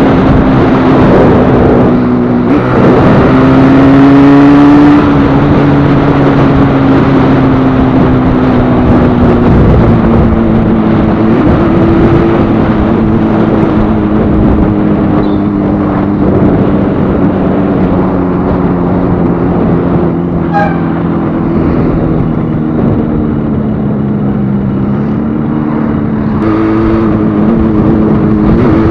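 Freshly rebuilt Yamaha RD350 two-stroke parallel-twin engine running under way. Its pitch rises about two seconds in, sinks slowly for about twenty seconds, then climbs again near the end.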